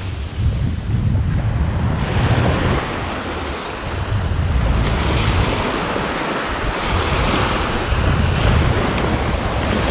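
Small surf waves breaking and washing up the sand, with wind rumbling on the microphone.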